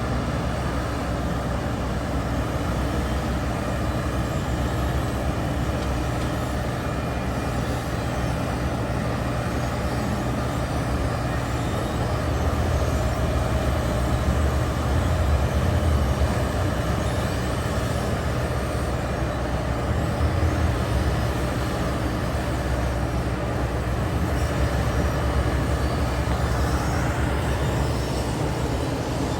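Heavy construction machinery's engine running steadily while working a gravel driveway base, a little louder in the middle stretch.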